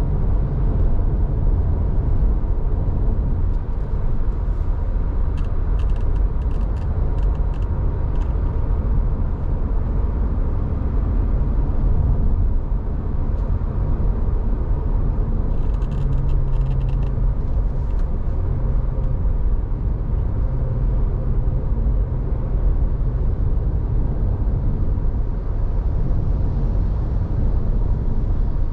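Steady low rumble of road traffic: vehicle engines and tyres on the road. Two short runs of light, quick clicks break in, about five seconds in and again around sixteen seconds.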